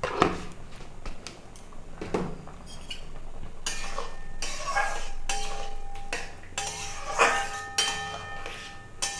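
Flat metal spatula stirring mango chutney in a kadai, stirring the sugar in: scraping strokes against the pan about two a second, some with a short metallic ring. Two sharp knocks of metal on the pan come in the first couple of seconds.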